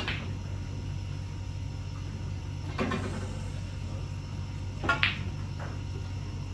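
Snooker balls and cue striking during practice shots: a few sharp clicks spaced a couple of seconds apart, the loudest a close double about five seconds in, over a steady low hum.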